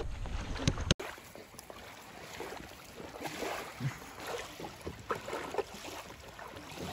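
A chocolate Labrador retriever licking and chewing raw lake trout scraps, with soft irregular wet smacks over a faint outdoor hiss. It is preceded by about a second of wind noise that cuts off abruptly.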